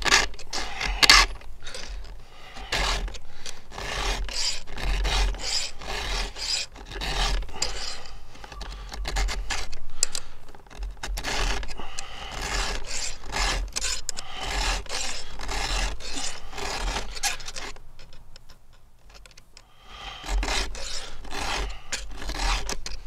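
Round chainsaw file rasping across the cutters of a 3/8-pitch chainsaw chain in a steady series of hand strokes. The strokes break off briefly near the end, then resume.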